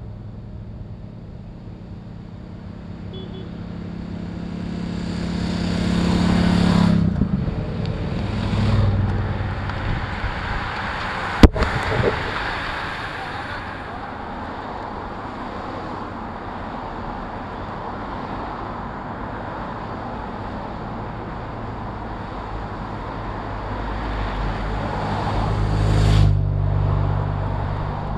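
Motorcycles and cars passing close by on the highway: engine hum with tyre and wind rush swelling to passes about six and nine seconds in and again near the end. A single sharp knock about eleven seconds in.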